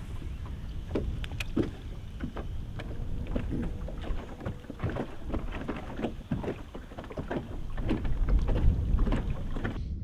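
Wind rumbling on the microphone aboard a fishing boat, with irregular knocks and taps throughout; the rumble swells near the end.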